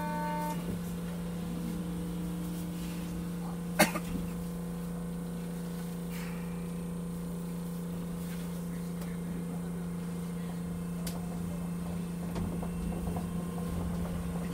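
Steady hum inside the cab of an Osaka New Tram, a rubber-tyred automated guideway train, standing at a station. A short chime of tones ends just after the start, and a single sharp click comes about four seconds in. The running noise grows near the end as the train starts to pull away.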